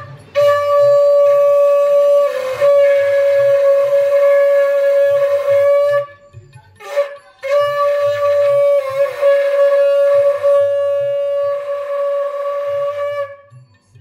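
Conch shell (shankh) blown in two long, steady blasts of about six seconds each, with a short break between them.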